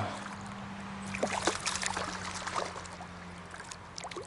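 Stream water trickling, with a run of short, sharp splashes in the middle as a small hooked yamame trout is brought in at the surface.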